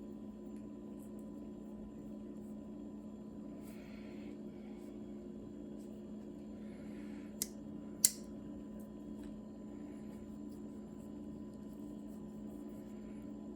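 Steady low hum with faint soft handling rustles. About seven seconds in come two sharp clicks well under a second apart, the second louder.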